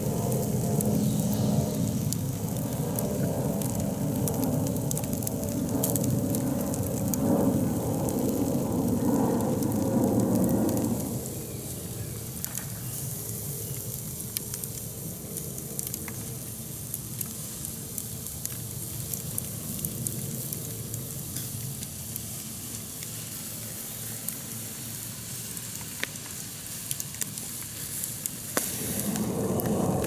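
Hamaguri clams sizzling on a wire grill over campfire embers as their juices boil against the hot shells, with scattered crackles from the fire. The sizzle is louder for the first ten seconds or so, drops away, and swells again near the end.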